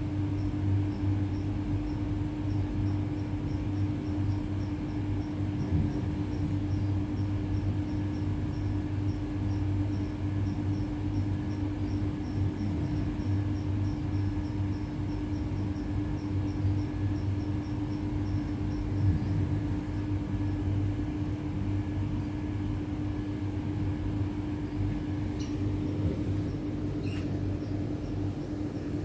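Bulldog snoring in its sleep, a low fluttering rumble that keeps going, over a steady low hum.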